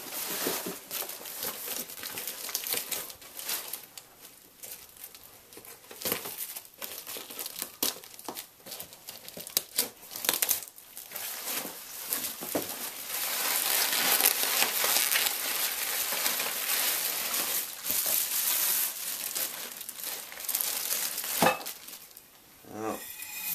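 Newspaper packing being crumpled, rustled and torn by hand while items are unwrapped and lifted out of a shipping box, with scattered small knocks and clicks. The rustling is densest and loudest in the second half.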